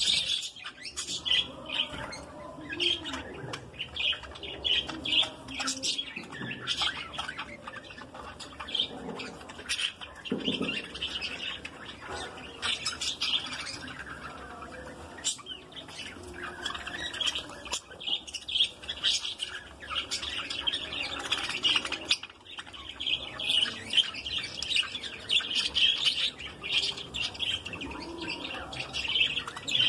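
A flock of budgerigars chirping continuously, many short, high calls overlapping.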